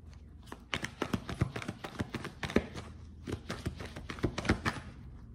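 Tarot cards being shuffled by hand: a quick run of short papery taps and slaps that starts about a second in and stops near the end.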